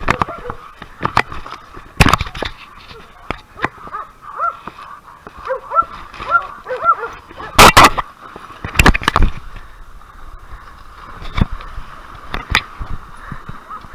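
Hunting dogs barking a handful of short barks, over heavy knocks and bumps from a body-worn camera rig crashing through brush. The hardest knocks come about halfway through.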